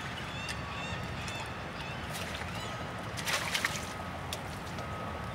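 Water slapping against a small fishing boat's hull, with a short burst of splashing a little over three seconds in from a hooked drum fish thrashing at the side of the boat.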